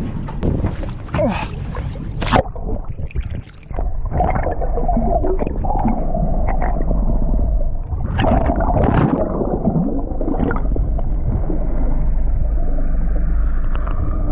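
Water splashing at the surface, then muffled underwater gurgling and sloshing over a steady low hum, the sound dulled by the water around the microphone.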